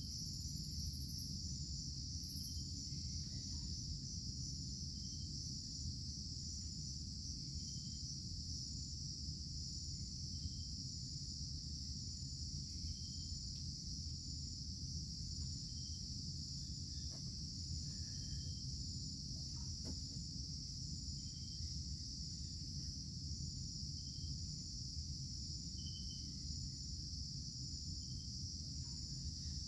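Steady high-pitched drone of rainforest insects, with a faint short chirp repeating every two or three seconds over a low steady rumble.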